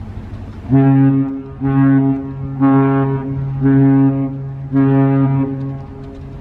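Ship's horn on a ferry sounding five short blasts, about one a second, each a deep pitched note lasting under a second.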